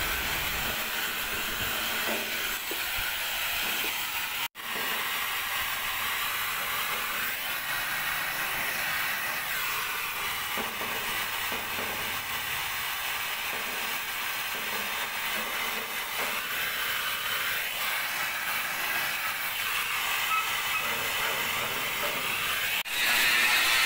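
Gas torch burning with a steady hiss, heating the paint on a rusted spot of a CAT 320GC excavator hood panel so it can be scraped off before welding. The hiss breaks off for an instant about four and a half seconds in, and music comes in just before the end.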